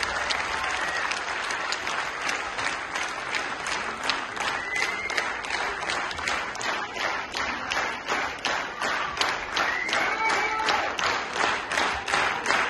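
Theatre audience applauding. After a few seconds the applause settles into rhythmic clapping in unison, about two to three claps a second, with a few shouts over it.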